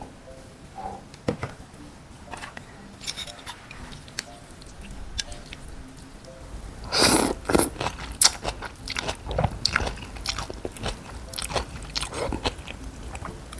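Rice noodles in broth being slurped and eaten close to the microphone. It starts with soft clicks and handling sounds, then from about halfway through comes a run of loud, rapid slurps.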